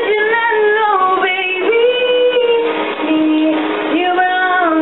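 Background pop song with a female voice singing long held notes that slide between pitches.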